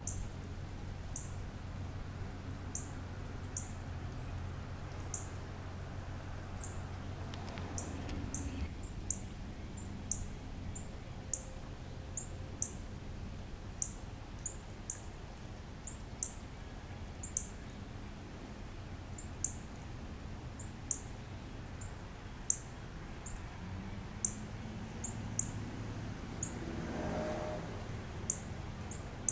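Northern cardinal chip calls: short, sharp, high notes, each sliding down, repeated about once a second at irregular intervals.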